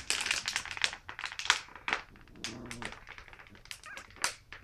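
Empty plastic water bottle crinkling and crackling in quick, irregular snaps as a puppy bites and tugs at it.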